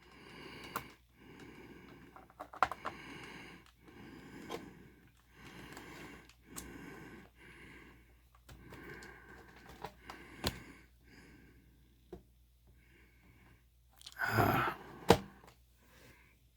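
A screw being turned out of a laptop's plastic case with a small screwdriver: a series of short scraping twists, each lasting up to about a second, with light plastic clicks between them. Near the end come a louder breath and a click.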